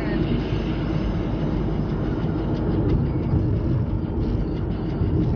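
Steady road and tyre rumble inside a moving car's cabin, with faint irregular ticks over it.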